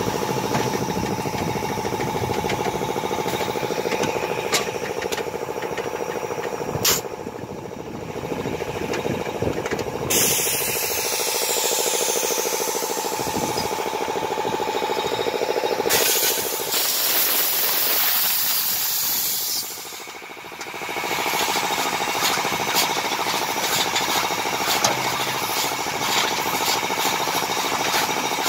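Kom Silaj KM 100 silage baling and wrapping machine running, with a steady mechanical hum and rattle as it bales chopped silage and wraps it in stretch film. A long loud hiss sets in about a third of the way through and stops about two thirds through.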